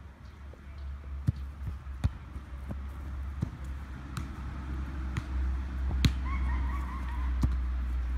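Football being kicked in a game of foot tennis: several sharp, irregularly spaced thuds of foot on ball, the loudest about six seconds in. Steady low wind rumble on the microphone runs underneath.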